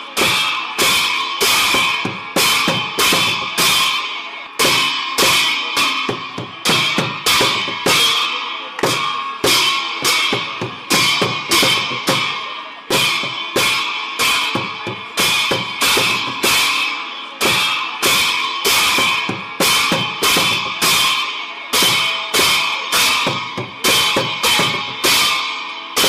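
Background music with a steady, fast percussive beat, accented about once a second, over a continuous metallic ringing.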